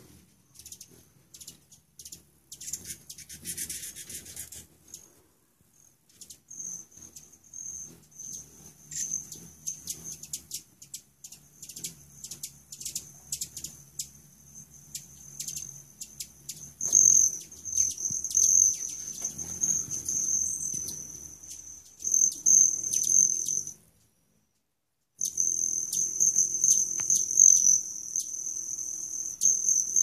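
Hummingbirds at a feeder, with the high, steady metallic wing trill of male broad-tailed hummingbirds and many short, sharp chip notes. The trill starts about six seconds in and grows louder from about halfway. The sound cuts out for about a second near the end.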